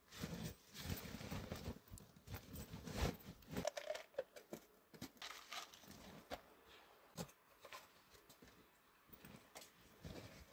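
Rustling and crinkling of gear being stuffed into a backpack, with irregular small knocks of handling. Busiest in the first few seconds, then sparser.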